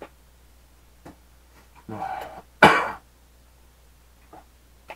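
A man clears his throat, then gives one sharp cough about two and a half seconds in.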